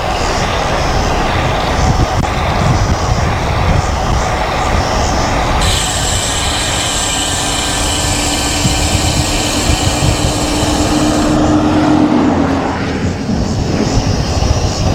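Heavy wind buffeting on a bicycle-mounted action camera's microphone while riding into a strong headwind. For about six seconds in the middle, a brighter hiss and a steady low hum join the wind.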